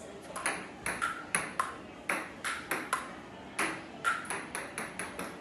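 Table tennis rally: a plastic ball clicking off paddles and the Butterfly Personal Rollaway table, about three sharp clicks a second, some with a short ring.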